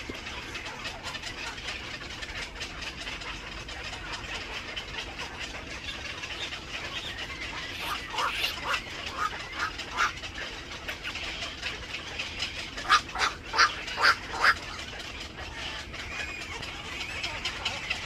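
Black-crowned night herons calling in a nesting colony: a steady background of many short, overlapping calls, with louder single calls from about eight seconds in and a quick run of about five loud calls near the end.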